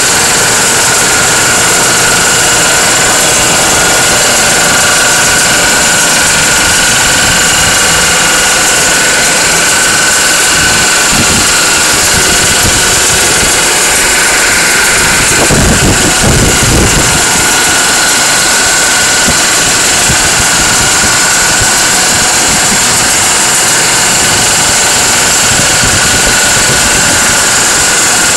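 Breathing-air compressor running steadily and loudly, a dense mechanical hiss with a steady high whine. A brief low rumble comes about halfway through.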